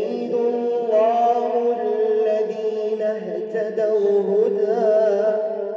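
A man chanting Quran recitation in the melodic tajweed style: one long unbroken phrase of drawn-out notes that waver in ornamented turns, fading near the end.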